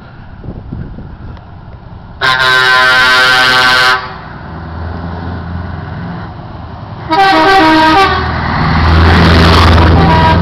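Truck air horn sounding twice: a long blast of nearly two seconds, then a shorter one about three seconds later. Underneath, lorry diesel engines rumble, swelling near the end with engine and tyre noise as a truck drives close past.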